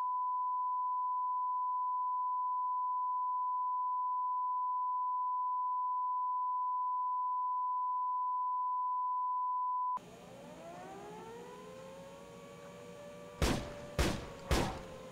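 Steady 1 kHz test tone over colour bars, cutting off abruptly about ten seconds in. Quieter room noise follows, with a hum that rises in pitch and then settles, then three sharp knocks about half a second apart near the end.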